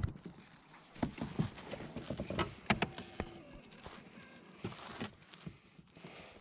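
Scattered knocks, taps and rustling as a small fish and a hooked lure are handled in a rubber-mesh landing net against the plastic deck of a fishing kayak.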